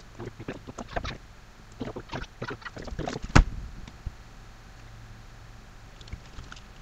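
A quick run of clicks and light knocks from hands at a laptop, touchpad clicks and handling on the table, with one sharp, much louder knock about three and a half seconds in. After that only a faint steady hum remains.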